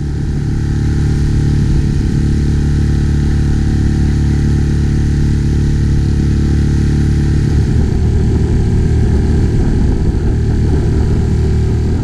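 Small outboard motor on an inflatable boat running steadily under way, heard close up, with the rush of its churning wake.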